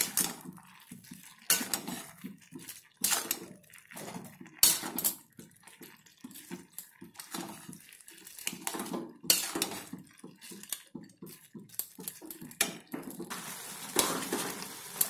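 Metal spoon scraping and knocking against a metal pan, in irregular clatters, while minced chicken and peas are stirred and sautéed in masala.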